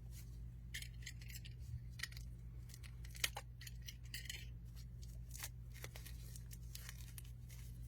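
Protective wrapping crinkling and rustling in short, scattered crackles as a wrapped crystal is handled and unwrapped, with one sharp click about three seconds in. A steady low hum sits underneath.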